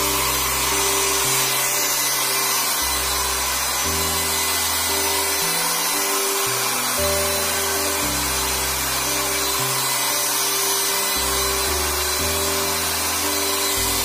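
Philips hand-held hair dryer running steadily on its high-speed setting, its fan and rushing air making an even hiss, with background music and a bass line that changes about every second.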